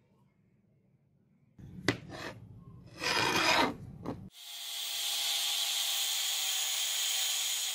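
Handling and rubbing noises with a sharp click, then from about four seconds in an angle grinder running steadily, grinding into the metal end at the butt of the chopper's wooden handle.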